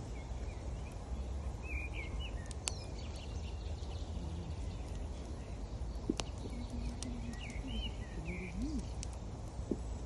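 Steady rushing of a river, with a few sharp pops from a crackling wood campfire and short bird chirps twice, about two seconds in and again near the end.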